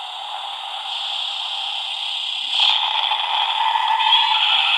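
Built-in electronic monster sound effects from light-up Carlton King Ghidorah and Showa-era Godzilla Christmas ornaments, played together through their tiny speakers, thin and tinny with no bass. It grows louder a little past halfway.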